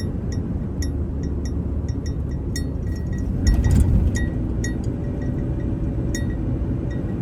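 Steady road rumble inside a moving vehicle, with something small and metallic clinking and ringing lightly a few times a second. A louder jolt comes about three and a half seconds in.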